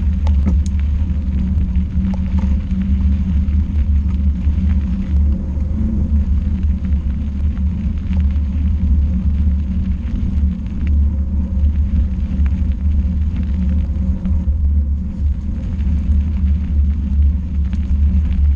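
Steady low rumble of a small, slow vehicle travelling along a gravel path, with its drive and tyres running continuously.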